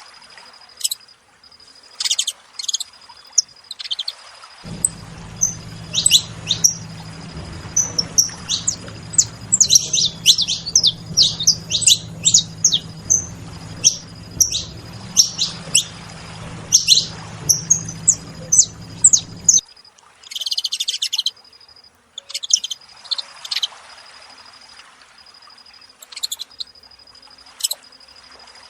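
Several saffron finches chirping, a rapid scatter of short, sharp calls, busiest in the middle. A steady high insect-like trill pulses underneath, and a low hum comes in a few seconds in and stops about two-thirds through.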